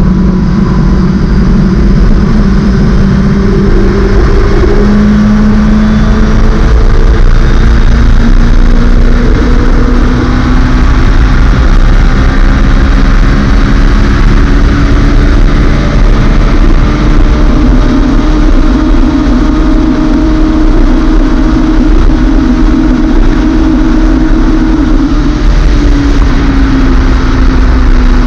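Suzuki Hayabusa Gen3's 1340 cc inline-four engine pulling in sixth gear at high motorway speed, its note rising slowly as the bike accelerates, under a heavy rush of wind noise. Near the end the pitch dips a little.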